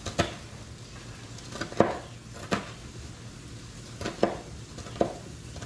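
Chef's knife chopping cooked bacon into bits on a plastic cutting board: about seven sharp knocks, unevenly spaced, some in quick pairs.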